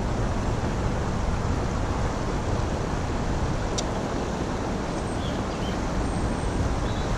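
Steady rushing of a river flowing over a shallow bed close by, mixed with wind rumbling on the microphone.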